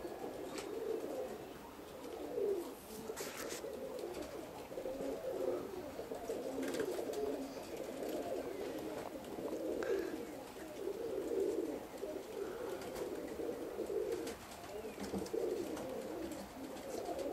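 Birmingham roller pigeons cooing, several birds overlapping in repeated warbling phrases.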